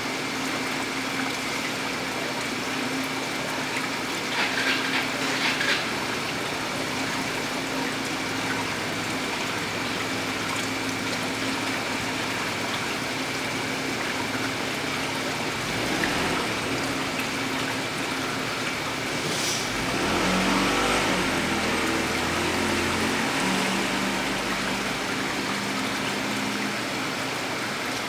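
Steady hiss of aquarium water and equipment running, with a faint hum under it. There are brief rattles about five seconds in, and a low hum swells for a few seconds past the middle.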